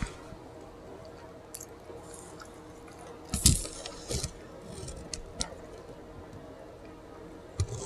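Chewing and lip smacking while eating a bacon cheeseburger: scattered wet clicks, with a louder squishy burst about three and a half seconds in.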